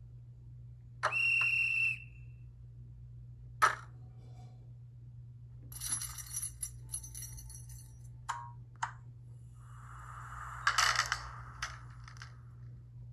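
ESU LokSound 5 sound decoder in a Märklin 3030 HO-scale Swedish Da electric locomotive, playing its sound effects through the model's small speaker over a steady low hum. A short high horn blast comes about a second in, then scattered clicks and clinks, and a burst of hiss near the end.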